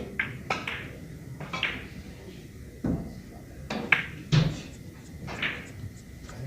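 Billiard balls and cue tips clacking: about ten sharp, separate clicks with a brief ring, spread unevenly, the loudest a little after four seconds, over a low steady hall murmur.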